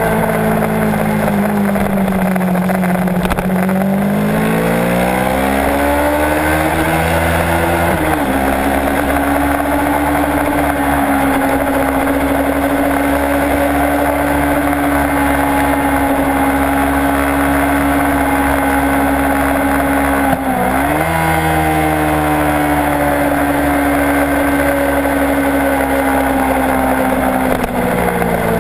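Kawasaki Ninja 650 parallel-twin engine under hard riding. The pitch sags in the first few seconds, then climbs, with quick dips and recoveries at gear changes about 8 and 20 seconds in. It holds a steady high pitch between the changes and drops again near the end.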